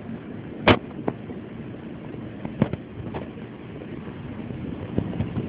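Scattered clicks and light knocks from the parts of an Aakash tablet being handled as it is taken apart. There is one sharper click about a second in, then a few fainter ones, over a steady background noise.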